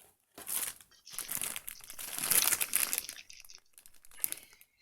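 Packaging crinkling and rustling as a toy's parts are unwrapped from the box. It starts about half a second in, is loudest in the middle and thins out near the end.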